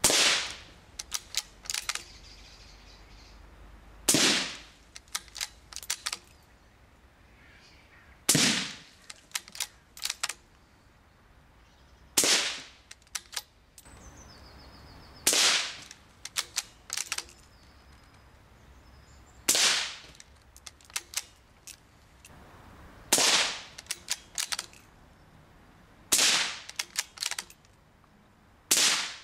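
Rimfire rifle shots, one loud, sharp crack about every four seconds, each with a short ringing tail. A second or so after each shot comes a short run of small clicks.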